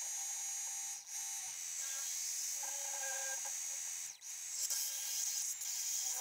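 Milling machine spindle running with a steady high whine as a twist drill bores through round chuck-key bar stock, the drills stepping up toward a 7/16 in hole. The sound breaks off briefly about a second in and again about four seconds in, then gets louder and rougher near the end as a larger drill cuts.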